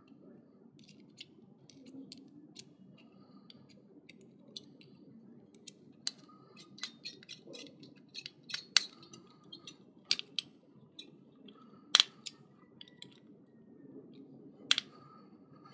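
Scattered small clicks and ticks of a screwdriver and fingers working the metal screw terminals of a plastic relay socket while fitting wires, with a few sharper clicks in the second half.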